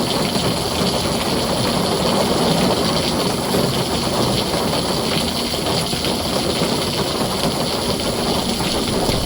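Heavy rain falling steadily on a tin roof: a dense, even hiss with a low rumble underneath.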